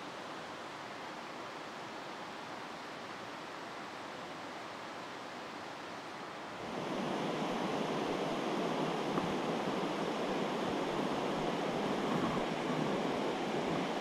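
Rushing water of a swollen mountain river, a steady wash of noise. About seven seconds in it jumps suddenly louder and fuller.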